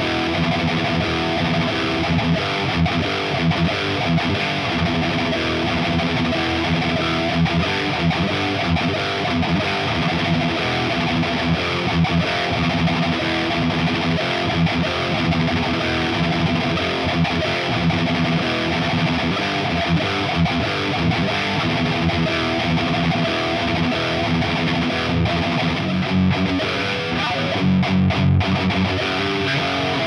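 Electric guitar played continuously with distortion: a 1987 Charvel Model 6 through a modded 1978 Marshall Super Bass head into a Marshall Mode Four 4x12 cab with Celestion G12K-100 speakers, miked with a Shure SM57. Near the end come a few heavier low chords.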